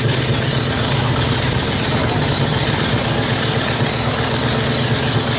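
Early vintage motorcycle engines idling steadily.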